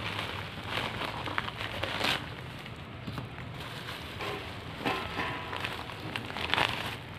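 Plastic mailer bag and bubble wrap crinkling and rustling in handling, loudest in surges about two seconds in and near the end, over a steady patter of rain.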